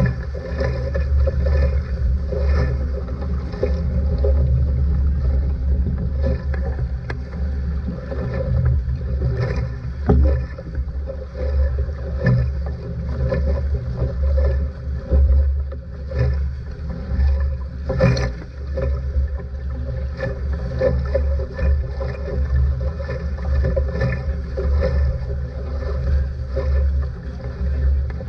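Water rushing and spray splashing along the hull of a traditional Marshallese outrigger sailing canoe (proa) moving fast through chop, with wind buffeting the microphone. Now and then a sharper splash or slap of a wave against the hull, clearest about ten, twelve and eighteen seconds in.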